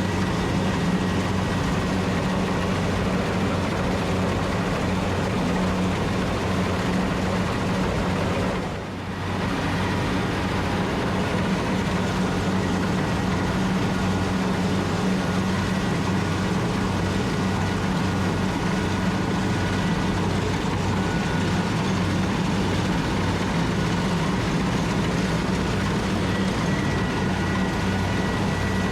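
Rice combine harvester running steadily: a low engine hum over an even mechanical rush, dipping briefly about nine seconds in.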